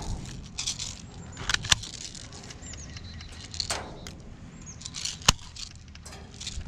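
Airsoft guns firing: a few sharp, widely spaced snaps over rustling and a low steady hum.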